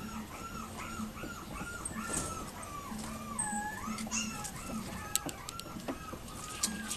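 Seven-week-old yorkiepoo puppies whimpering: a run of short, high whines, about three a second. A few sharp clicks come in the second half.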